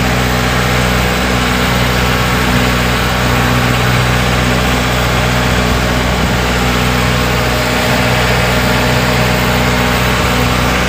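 Engine of a motorized outrigger boat (bangka) running steadily under way, one constant note that holds without change.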